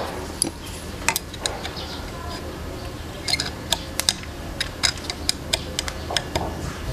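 Scattered sharp clicks and light rattles from a Bosch GST 8000 jigsaw being handled with its motor off, as its base plate is worked for the bevel tilt.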